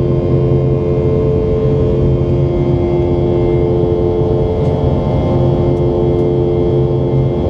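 Steady drone inside the cabin of a Boeing 717-200: the rear-mounted Rolls-Royce BR715 turbofans hum at several fixed pitches over the rush of airflow, with no change in engine power.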